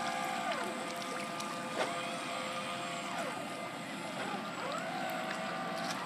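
Whine of radio-controlled model boats' brushless electric motors, an outrunner driving a three-blade prop and an inrunner. Its pitch falls and rises several times as the throttle is worked, over a steady hiss.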